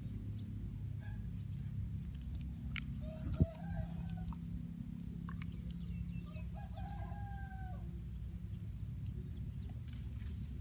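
A rooster crowing twice, each crow an arching call about a second long, over a steady low rumble. A single sharp knock, the loudest sound, comes just as the first crow begins.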